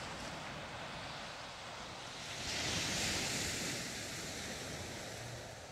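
Small sea waves breaking and washing up a sandy beach, a steady hiss with one wave surging louder about halfway through.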